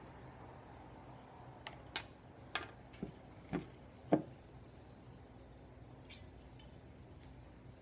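Kitchen utensils and a plastic pressure-cooker pot being put down and moved on a stone countertop: about six light clicks and knocks within a few seconds, the last a fuller knock, then a couple of faint ticks.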